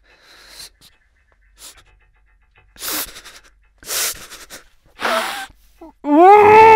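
A man in distress taking heavy, gasping breaths about a second apart, then letting out a loud, anguished scream about six seconds in that stops abruptly.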